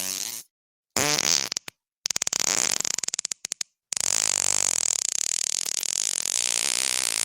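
A run of fart sounds: one trailing off at the start, a short one about a second in, a rapid sputtering one, then a long, rattling one from about four seconds in that keeps going.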